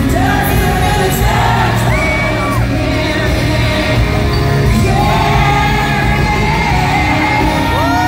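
Live country-pop song: a female lead singer holding long notes over a full band with guitars and drums, heard loud through a phone in the crowd of an arena.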